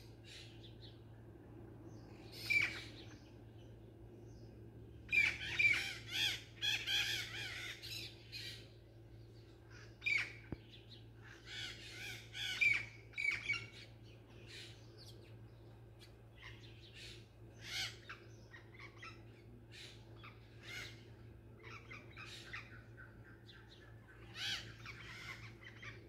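A flock of small birds perched in a tree calling in scattered bouts, busiest about five to eight seconds in and again around ten to thirteen seconds, with quieter single calls later.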